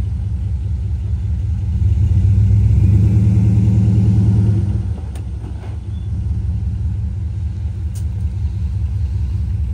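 Dodge Dakota pickup's engine running, swelling to a louder, heavier drone for about three seconds as it pulls on tow chains against a car left in park, then dropping back to a steady idle. Two brief sharp clicks follow later.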